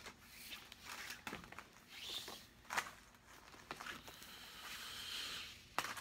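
A length of cordage being handled and pulled out of its quick-release hank, making faint rustling with a few light clicks. From about four seconds in there is a steadier swishing as the cord slides through the hands.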